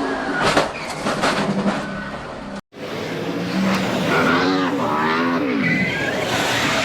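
NASCAR Sprint Cup stock cars' V8 engines at racing speed, with several sharp cracks in the first two seconds. After a brief drop-out a little under halfway, the engine notes rise and fall as cars go past.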